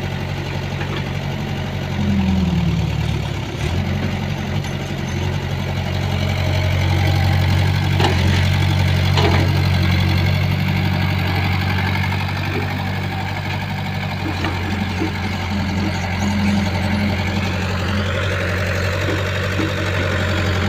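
Excavator's diesel engine running steadily, its pitch dipping briefly about two seconds in, with a few knocks around the middle and a thin rising whine near the end.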